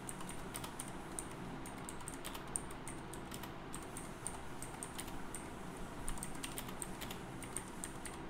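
Typing on a computer keyboard: an irregular run of quick key clicks as a sentence is typed.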